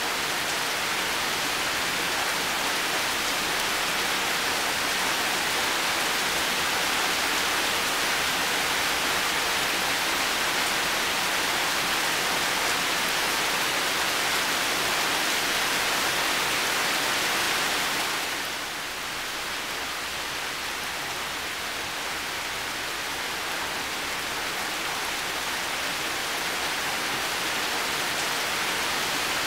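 Heavy rain falling steadily, a dense even hiss. About two-thirds of the way through it briefly drops a little in level and loses some of its brightness, then carries on.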